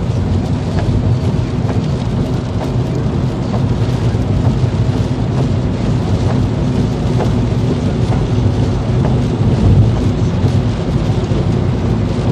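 Car driving in rain, heard inside the cabin: a steady low rumble of engine and tyres on a wet road, with rain spattering on the car in scattered light ticks.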